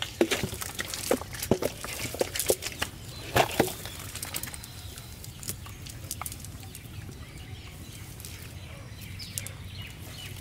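Freshly caught fish flopping and slapping in a metal bowl of muddy water and in a wet cast net: a quick run of sharp slaps over the first few seconds, then fewer and quieter.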